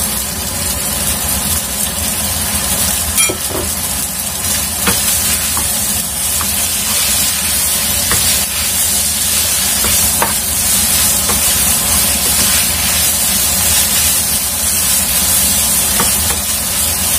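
Flat rice noodles sizzling steadily in a hot non-stick frying pan while being stir-fried with a wooden spatula, with a few light knocks of the spatula against the pan.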